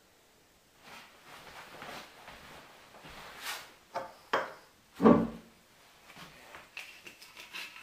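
Bottle and can being handled on a kitchen worktop: rustling, two sharp knocks about four seconds in, a heavy thump about a second later, then light clicks and rattling near the end as the whiskey bottle is lifted.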